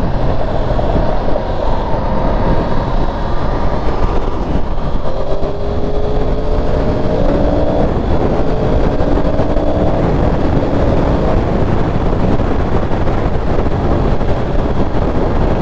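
A 2023 Yamaha R1's crossplane inline-four engine cruising at highway speed, under a steady rush of wind on the microphone. The engine note shows through more clearly in the middle.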